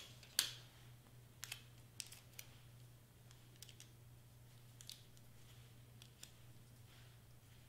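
Sheets of cardstock being handled and pressed down on a cutting mat: a few soft rustles and short clicks, the sharpest just under half a second in, over a steady low electrical hum.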